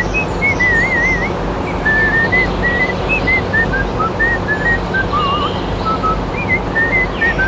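A whistled melody of short, hopping notes with quick warbling trills, over a steady noisy hum.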